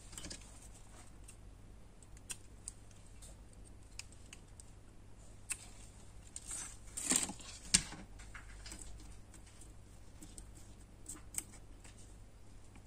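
Small craft scissors snipping a small leaf embellishment, with light clicks and rustles of handling on the cutting mat. A louder cluster of snips and clicks comes a little past halfway.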